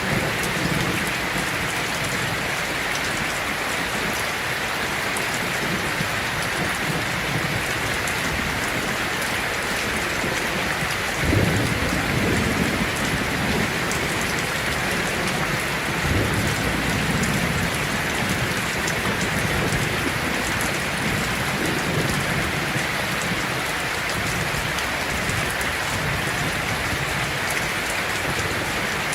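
Heavy rain falling steadily on a tin roof, with low thunder rumbling underneath. A louder roll of thunder comes in suddenly about eleven seconds in, and further rumbles follow a few seconds later.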